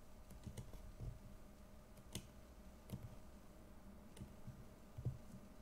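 Faint, irregularly spaced clicks of a computer mouse, about seven in all, over quiet room tone.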